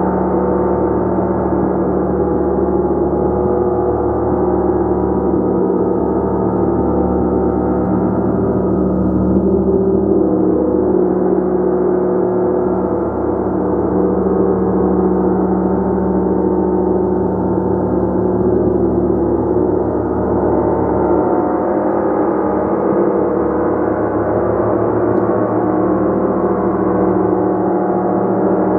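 Gong played continuously: a steady, dense wash of many overlapping sustained tones, with no single strike standing out.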